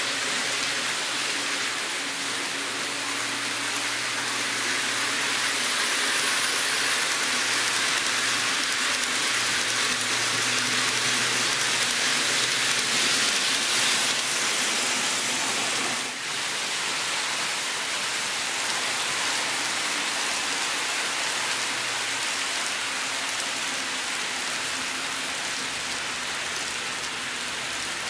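N scale model trains, an E231-series Tokaido Line set among them, running on the layout's track: a steady rushing whir of wheels on rail with a faint motor hum that comes and goes.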